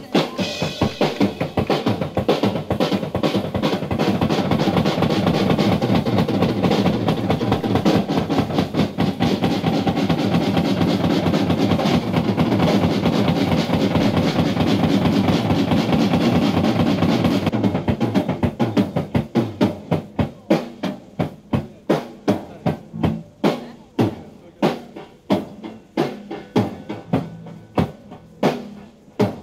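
Live drum kit solo on an audience recording: a fast, dense roll under ringing cymbals for about the first seventeen seconds. Then the cymbals stop and single drum strokes follow, about two or three a second.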